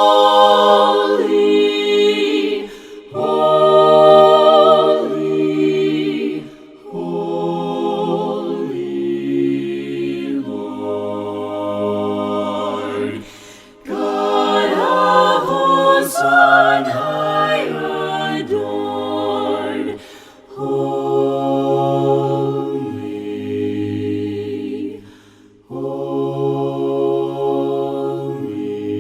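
Voices singing a slow hymn a cappella in harmony: long held chords in phrases of several seconds, with short breaks for breath between them.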